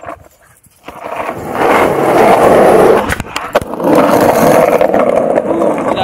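Skateboard wheels rolling over pavement. The rolling builds up about a second in, and a few sharp clacks come around the middle as the board crosses a small gap in the pavement.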